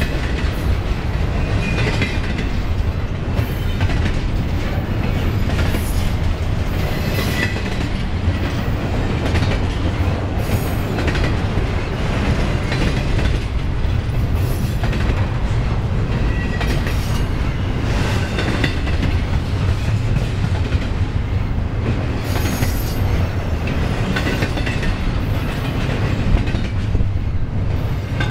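Double-stack intermodal well cars of a long freight train rolling past at close range: a steady heavy rumble of steel wheels on rail, with scattered clanks and clacks from the wheels and cars.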